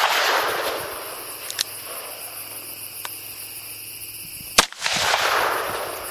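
A .357 Magnum revolver fired once, a sharp shot a little over halfway through, followed by about a second of echo dying away; the echo of the previous shot fades out at the start. Two much fainter cracks come between them.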